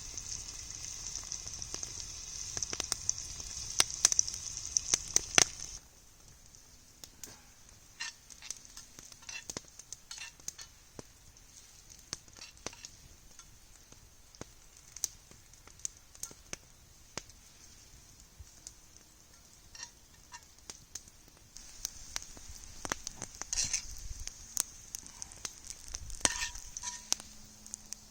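Vegetables sizzling in a cast iron pan over a campfire: the sizzle stops abruptly about six seconds in and returns about 22 seconds in, with scattered sharp crackles and pops from the fire throughout.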